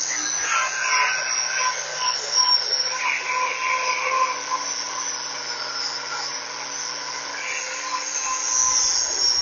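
Electric angle grinder fitted with a paint stripper disc, running steadily with a motor whine and a hiss as it strips loose paint off steel brackets.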